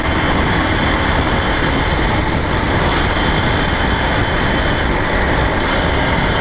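Steady wind and road noise from a Lifan KPR 165 motorcycle cruising on a highway at about 55–70 km/h, with the engine's even drone underneath.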